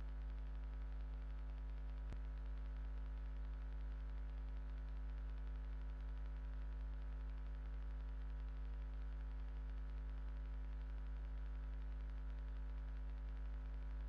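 Steady electrical hum with a stack of even overtones and a light static hiss, the kind of mains hum picked up on a CCTV camera's audio feed. A single faint click about two seconds in.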